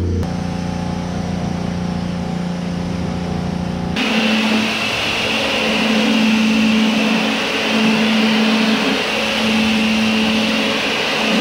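Car-wash high-pressure washer: a steady pump hum, then about four seconds in the jet of water starts hitting a pickup truck's body panels, a loud hiss over the pump's hum, which swells and fades about once a second.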